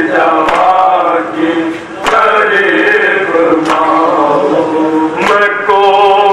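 Several men's voices chanting a noha, an Urdu lament, together in a wavering, drawn-out melody. A sharp slap lands about every second and a half, keeping the beat.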